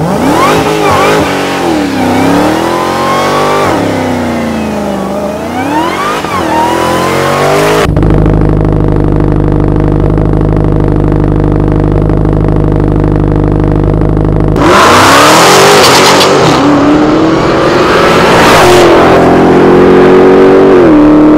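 Supercharged 6.2-litre Hemi V8 of a Dodge Challenger SRT Demon revving up and down several times. It then idles with a steady rumble for several seconds. About fifteen seconds in it breaks into a sudden, loud full-throttle acceleration, its pitch climbing.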